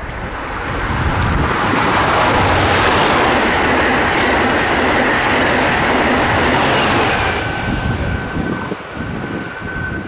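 Amtrak Acela Express high-speed electric trainset passing at speed: a loud rush of wheels on rail that swells over the first couple of seconds, holds, then fades as the train moves off, with a thin steady high tone in the last two seconds or so.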